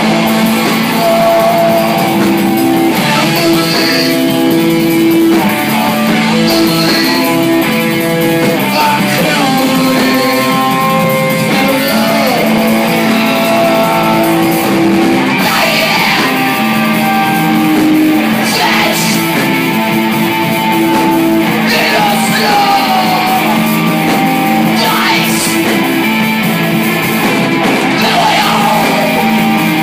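Loud live rock music: electric guitar, bass guitar and drums, with a singer singing and shouting into a microphone.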